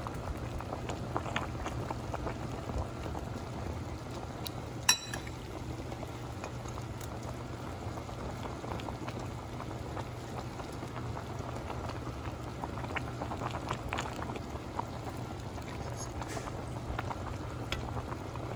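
Beef shank broth boiling hard in an enameled pot, a steady bubbling with small pops and clicks, while a metal ladle skims off the scum. A single sharp clink stands out about five seconds in.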